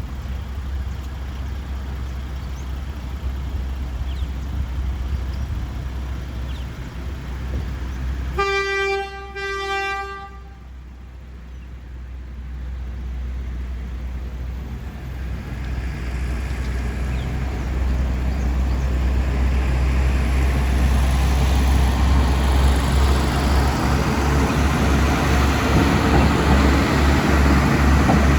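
Sugar cane train sounding two short horn blasts, one steady pitched tone each, about a third of the way in. Then the locomotive and its cane wagons rumble in, growing steadily louder to the end.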